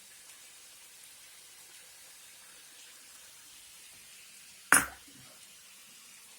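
Chicken filling frying quietly in a pan with a faint, steady sizzle. About three-quarters of the way through there is a single sharp knock, as of a utensil or spice container against the pan.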